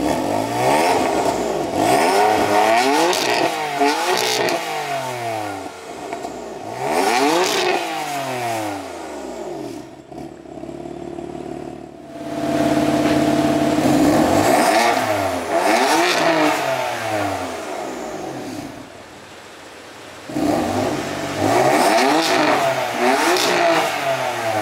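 BMW M4's S55 twin-turbo inline-six, running a Bootmod3 stage 2 tune and catless downpipes through the stock exhaust with its flaps open, revved hard while parked: several short blips rising and falling, then one longer rev held steady for a couple of seconds about halfway before dropping back, then more blips near the end.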